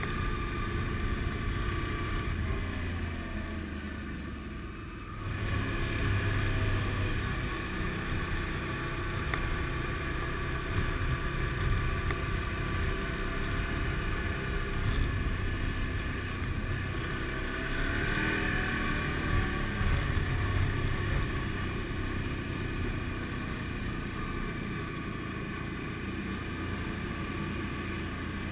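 Motorbike engine running steadily on the move, with wind noise over the camera. The engine eases off about four seconds in, then pulls louder again.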